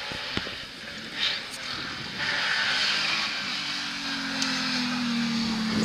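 Rally car engine running over a steady noisy hiss; from about four seconds in its note falls slowly. A sharp click about half a second in.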